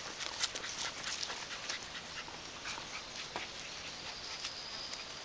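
Alapaha Blue Blood Bulldog puppies play-fighting in grass: quick scuffling and rustling with many short crackles, along with small puppy sounds.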